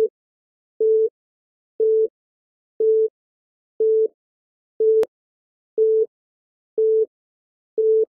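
Countdown timer beeping: a short beep once a second, nine in all, each about a third of a second long and at the same mid pitch.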